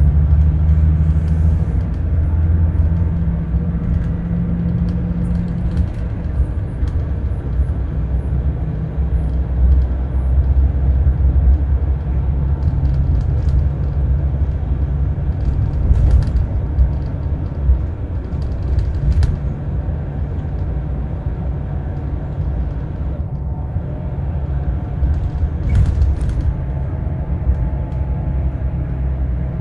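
Scania K360 coach's diesel engine running, a steady low drone whose note shifts over the first few seconds and then holds. A few light clicks and knocks sound over it.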